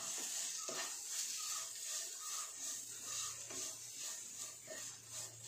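A wooden spatula stirring and scraping a frying onion masala in a nonstick pan, over a steady faint sizzle.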